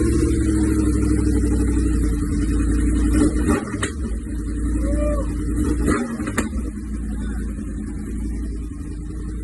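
1000cc sport-bike engine running steadily through its exhaust, with a few brief sharp clicks.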